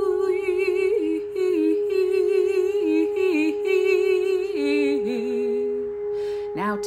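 Brass singing bowl ringing a steady, sustained tone as it is rimmed with a wooden mallet. Over it a woman's voice sings wordless, wavering notes that step from pitch to pitch.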